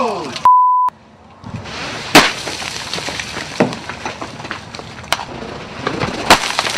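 Giant hailstones smashing down with several sharp cracks, a second or so apart, over a steady hiss of falling hail. A short steady beep sounds about half a second in, then the sound drops out for about a second.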